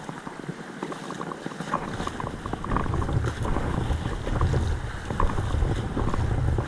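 Creek water rushing and sloshing, with wind rumbling on the microphone from about two seconds in.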